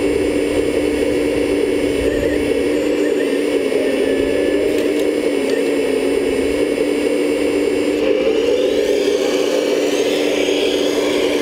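1/14-scale Lesu Aoue hydraulic RC excavator running: a steady hum and whir from its hydraulic pump and motors as it digs and swings, with rising whines near the end as it slews around.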